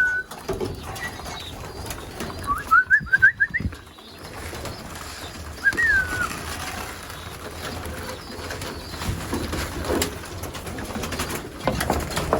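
Racing pigeons in a loft: a quick run of short, high, rising peeps about three seconds in and another single peep near six seconds, with faint cooing.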